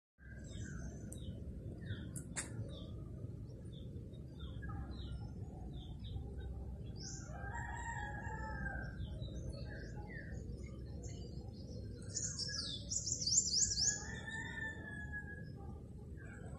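Birds chirping, with a rooster crowing twice, over a steady low rumble. The loudest moment is a quick run of high, falling bird notes about twelve seconds in.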